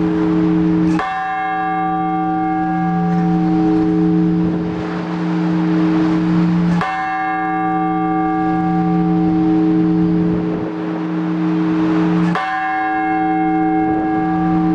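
Orthodox blagovest on a large church bell: single measured strokes, three in this stretch about five to six seconds apart, each stroke ringing on with a long low hum into the next. The slow single strokes on one bell are the weekday call to service.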